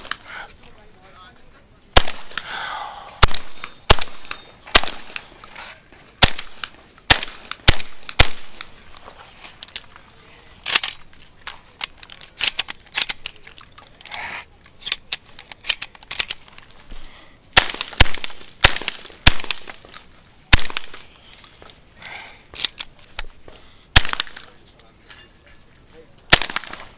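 Shotgun fired from the shooter's own shoulder in quick strings of loud shots, with short pauses between strings. Between the shots come many smaller clicks and knocks as shells are loaded and the gun is handled.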